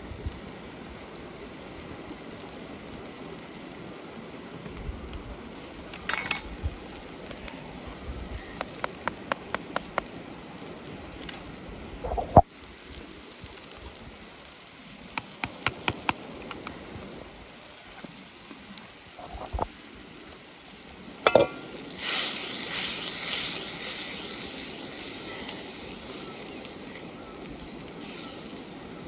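Curry cooking in a pan: scattered light clicks and knocks of a utensil against the pot, some in quick runs. About 22 seconds in, a loud hissing sizzle starts and slowly dies away over several seconds.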